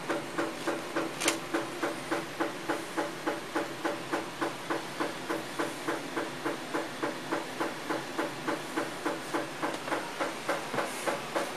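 Maytag washing machine running with an even, rhythmic mechanical pulsing about three and a half times a second, and one sharper knock about a second in.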